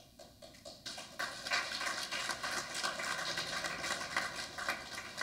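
Congregation applauding, starting about a second in and thinning out near the end.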